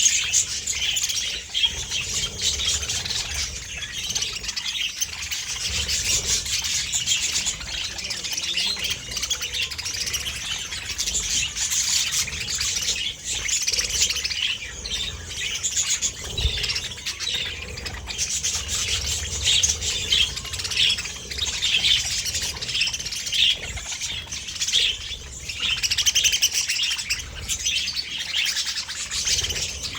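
A flock of budgerigars chirping and chattering continuously, many birds calling over one another.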